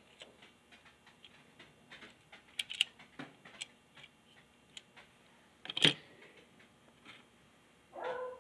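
Scattered small plastic clicks and taps from a dismantled Trackmaster Harper toy engine's plastic chassis being handled and worked apart by hand, with one sharp, louder snap about six seconds in.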